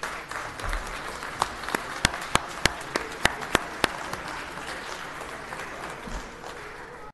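Audience applauding. One clapper close to the microphone stands out with sharp, evenly spaced claps, about three a second, from about a second and a half in until about four seconds in.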